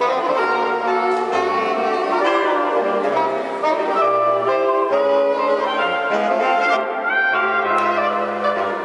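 A saxophone quartet playing: four saxophones sounding together in harmony, a low part moving in held notes beneath the upper voices.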